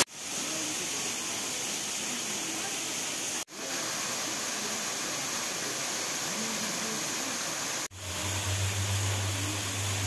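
Steady rush of water from a small waterfall falling into a shallow pool. The sound cuts out briefly twice, and a low hum joins in for the last two seconds.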